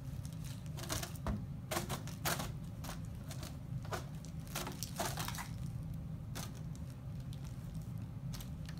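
Foil balloon crinkling and tapping as a baby bats it and tugs its ribbon: a scatter of short, irregular crackles and ticks, thickest in the first two-thirds and sparse near the end.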